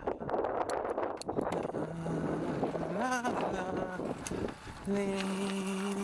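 Wind noise on the microphone, then a man humming long held notes with a short rise in pitch partway through.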